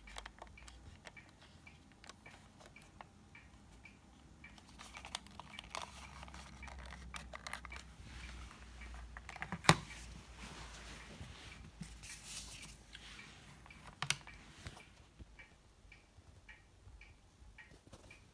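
Quiet handling of a small plastic portable TV and its telescopic metal antenna: rustling and scattered clicks, with one sharp click about ten seconds in and another a few seconds later. A faint, evenly spaced ticking is heard under it.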